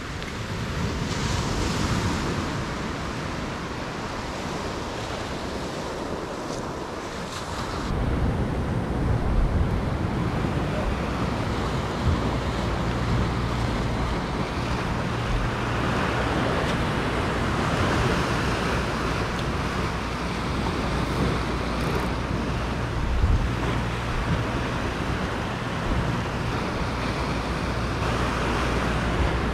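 Ocean surf washing and breaking on the shore, with wind on the microphone. A heavier low rumble comes in about eight seconds in and holds steady.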